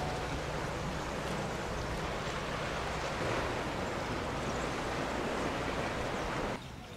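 Sea surf washing on the shore, a steady rush, which drops away suddenly near the end.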